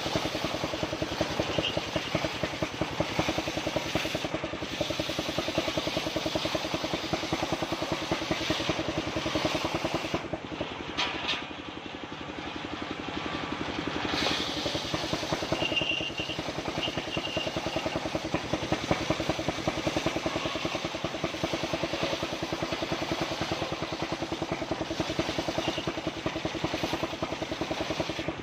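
Engine of an assembled circular saw rig running steadily with a fast, even chugging pulse. It eases off for a few seconds about eleven seconds in, then picks up again.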